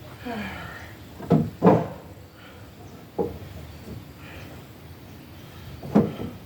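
Four sharp, irregular knocks of wood being struck or set down: two close together about a second in, one around three seconds, and one near the end.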